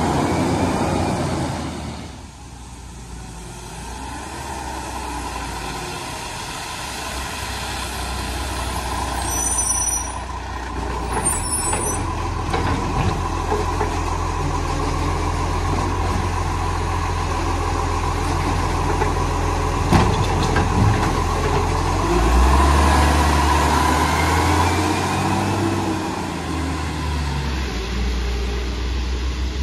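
Side-loading garbage truck's diesel engine running with a steady whine while its automated arm lifts and tips a wheelie bin, a few brief high squeals a third of the way in, then the engine louder as the truck pulls away about three-quarters through.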